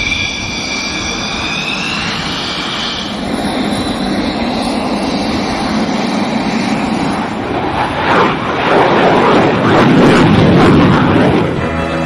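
Military jet engines: a high turbine whine that rises in pitch about two seconds in, giving way to the roar of a jet flying past, which is loudest near the end.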